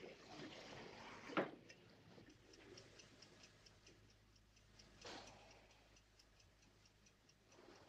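Faint, quick, even ticking of a wind-up alarm clock, with a brief soft noise about five seconds in.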